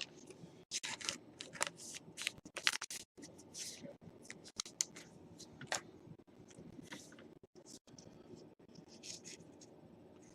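Baseball trading cards and pack wrapping being handled: a quick, irregular series of short rustles, slides and crinkles as cards are pulled and flipped through.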